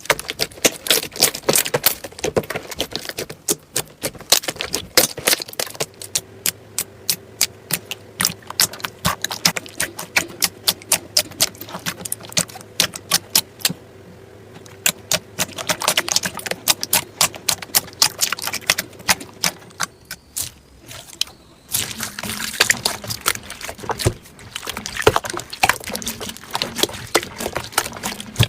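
Slime being squeezed and pressed by hand, making rapid wet, sticky clicks and pops in bursts, with short lulls about halfway through and again about three-quarters of the way in.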